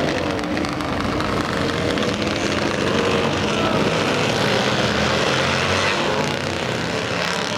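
A pack of flat-track racing motorcycles running hard around a dirt oval, their engine notes rising and falling in pitch as riders throttle on and off through the turns.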